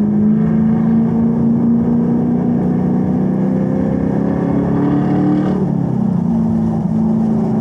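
Camaro's engine heard from inside the cabin, pulling in second gear, its note rising steadily as the car accelerates. About five and a half seconds in the note drops back and then holds steady.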